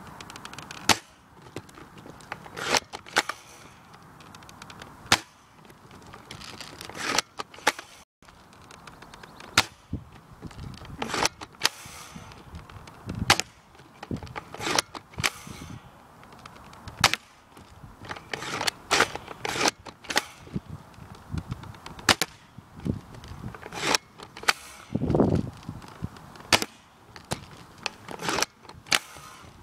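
Crosman Stinger R34 spring-action airsoft rifle fired over and over, a sharp crack roughly every two seconds, with fainter clicks between the shots.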